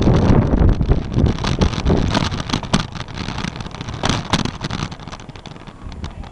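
Wind buffeting the microphone of a camera riding on a moving bicycle, with rattling clicks and knocks as it rolls over cracked, patched asphalt. The wind rumble fades over the second half.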